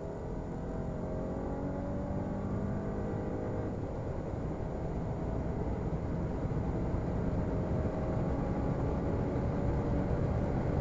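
Mercedes S500e plug-in hybrid's 3.0-litre twin-turbo V6 under full acceleration in a high gear, its note climbing slowly and steadily over a constant rumble, growing gradually louder.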